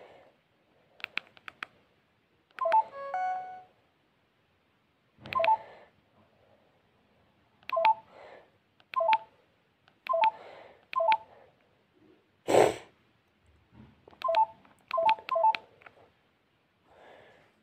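LG GS101 mobile phone keypad beeps: a series of short two-note tones at irregular intervals, each with a button click, as the keys are pressed. One louder noise comes about twelve and a half seconds in.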